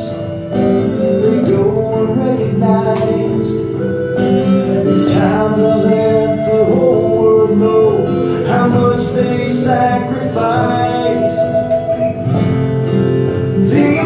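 Song from a music video played back over a hall's sound system: a man singing over acoustic guitar.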